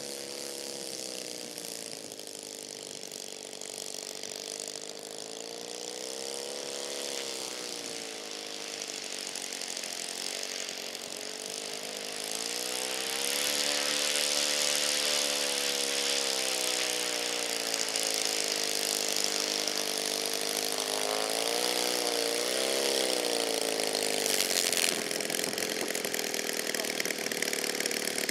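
Small single-cylinder engine of a radio-controlled model aircraft running at low throttle while taxiing, its pitch rising and falling with the throttle several times. It gets louder about halfway through as the model comes closer.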